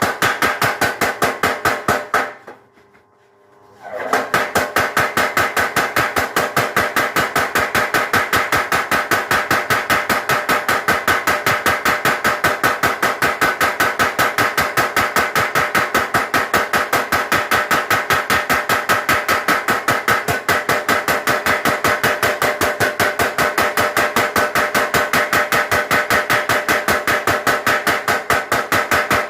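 Mechanical power hammer forging a thick piece of leaf-spring steel in rapid, even blows with a metallic ring. It stops for about a second and a half some two seconds in, then starts again.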